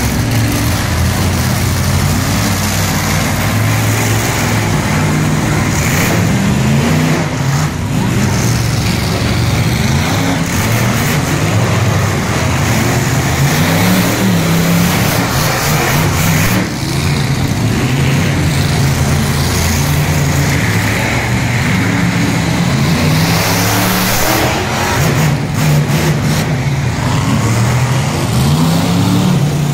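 Monster truck engine running loud and revving repeatedly, its pitch climbing and falling several times.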